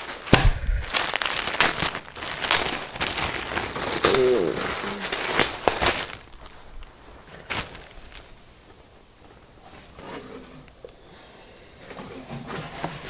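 Clear plastic bag crinkling and rustling as a T-shirt is pulled out of it, busy for about the first six seconds. After that comes quieter handling of the shirt, with one sharp click about seven and a half seconds in.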